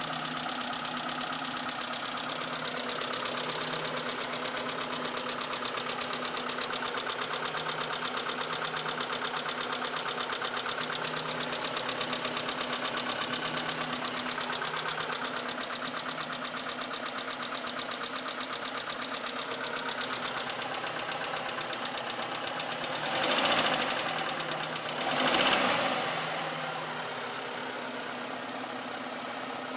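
Mitsubishi Colt engine idling with a fast, steady ticking, a tick that the owner says goes away after a few minutes of running. About 23 and 25 seconds in there are two short, louder surges.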